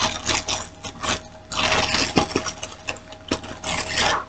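Plastic snack-cake wrapper crinkling and rustling in irregular bursts as someone tries to tear it open by hand, without getting it open.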